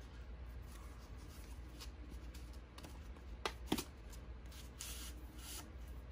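Cardboard mailing tube holding window tint film being handled and opened: light rustling and scraping as the tube is twisted and pulled apart, with two sharp clicks close together about three and a half seconds in.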